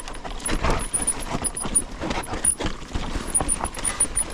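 Mountain bike descending a bumpy dirt singletrack: the tyres rumble over the ground while the frame, chain and suspension give off a run of irregular knocks and rattles from the bumps.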